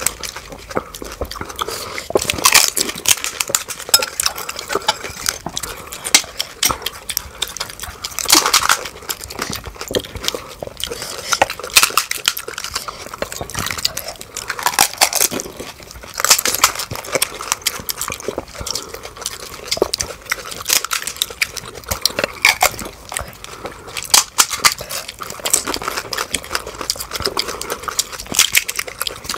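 Panipuri being eaten: crisp hollow puris cracked open with the fingers and crunched, many short sharp crackles one after another.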